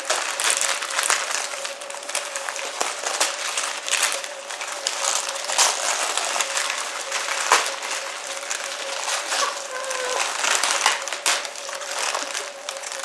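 Gift packaging being unwrapped by two people at once: paper rustling, crinkling and tearing in quick irregular crackles.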